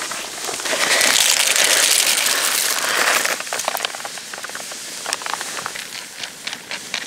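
Fat and food sizzling in a frying pan: a loud hiss for about two and a half seconds starting about half a second in, then quieter scattered crackles and spits.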